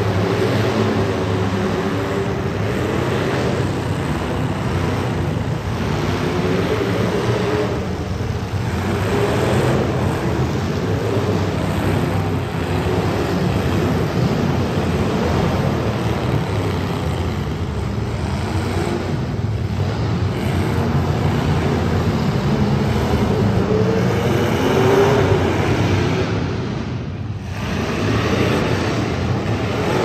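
Several demolition derby cars' engines running at high throttle, the pitch climbing and falling as they rev. The sound eases off briefly near the end.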